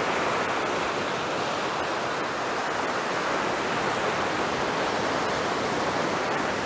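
Ocean surf breaking on a sandy beach, heard as a steady, even wash of noise.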